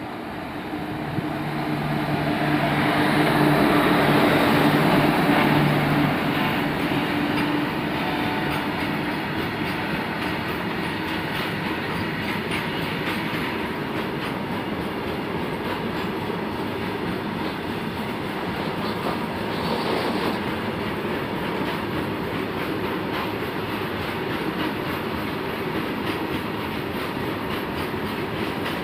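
Indian Railways WAG-7 electric locomotive passing close by at speed, loudest about four to six seconds in, with a steady hum as it goes by. A long string of open freight wagons then rolls past with steady clickety-clack of the wheels over the rail joints.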